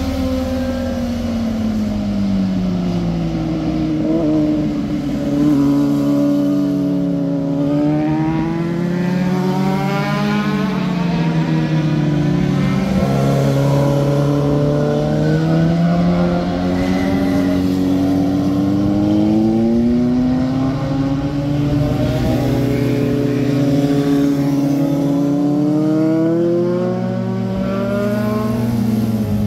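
Several sport motorcycles' engines revving through hairpin bends as they pass, overlapping, their pitch repeatedly falling and then rising again.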